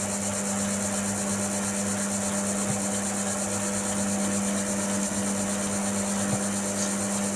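Chester DB10 bench lathe running, its motor and spindle giving a steady hum.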